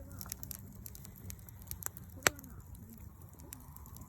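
Wood campfire crackling, with scattered small snaps and one sharp, loud pop a little over two seconds in.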